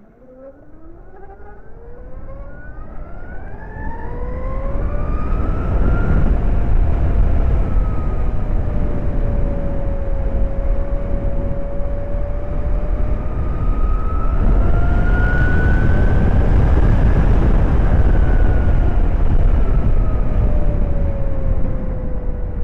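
2022 Zero SR electric motorcycle accelerating hard in sport mode. The whine of its electric drivetrain rises in pitch over the first several seconds, then wavers and sinks slowly as speed eases. A growing rush of wind and road noise runs underneath.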